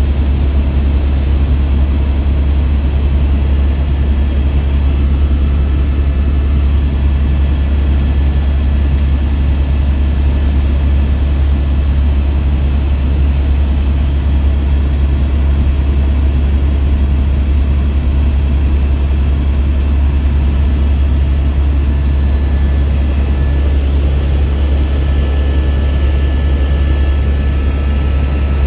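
Helicopter in flight heard from inside the passenger cabin: a loud, steady low drone from the rotor and engine, with a few faint steady high tones above it.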